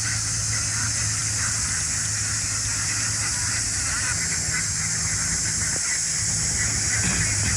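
A large flock of domestic ducks quacking together in a continuous chatter, over a steady high hiss and a low steady hum.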